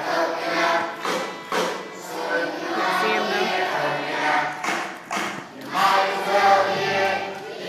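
A large group of young children singing a song together as a choir, with a few short thumps or claps among the singing.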